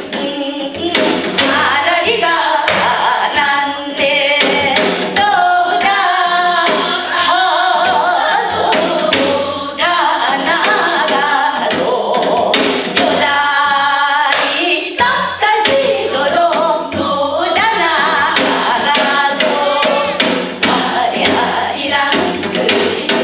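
A group of women singing a Korean folk song (minyo) together, accompanied by a Korean drum beating the rhythm in sharp, frequent strokes.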